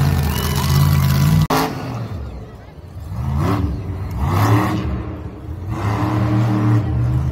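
Monster truck engines running loud; the sound breaks off abruptly about a second and a half in, then an engine revs up again in several rising pulls.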